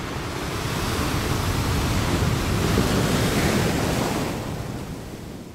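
A rushing sound effect of noise like surf or wind, with no tone or beat, swelling slightly and then fading away in the last second.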